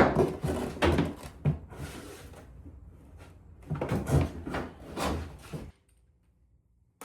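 Plastic fender liner being worked out of a car's wheel well: irregular knocks, clatters and scrapes of stiff plastic in two spells. The sound cuts off suddenly near the end.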